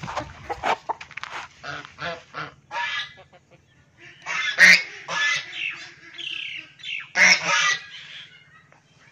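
Farmyard fowl calling: a quick run of short calls over the first three seconds, then two louder, longer bouts about four and seven seconds in.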